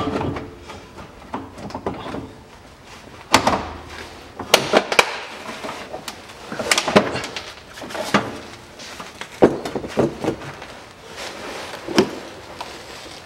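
Irregular metallic knocks, clunks and scrapes as the engine cooling radiator of a 1996 Toyota Dyna is worked loose and lowered out from under the truck.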